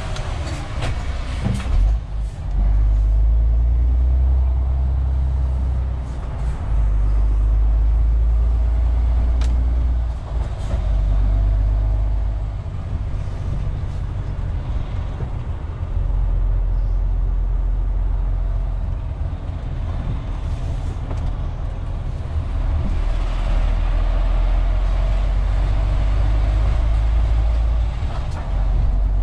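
MAN TGX 470 truck heard from inside the cab: its diesel engine and the road give a low, heavy rumble that swells and eases in stretches of a few seconds as the truck is driven, with a few short clicks about a second or two in.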